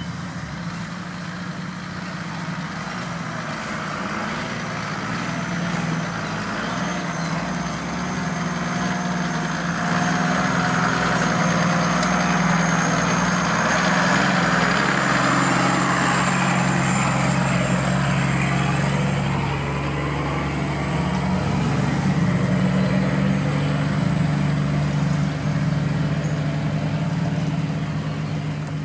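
Off-road vehicle's engine running steadily, growing louder about ten seconds in, with a faint thin high whine above it.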